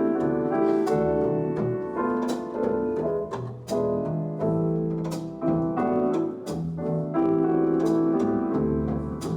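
Jazz piano with double bass playing an instrumental passage, heard as recorded music played back over hi-fi loudspeakers in a room.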